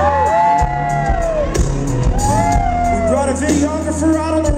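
Live country band playing loudly, with singing and shouted whoops from the singer and crowd sliding up and down over the music.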